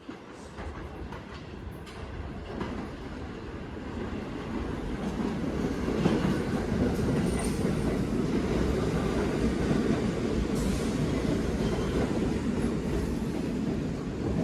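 1975 Pullman Standard R46 subway train picking up speed, its running noise of motors, wheels and rails growing louder over the first six seconds or so, then holding steady.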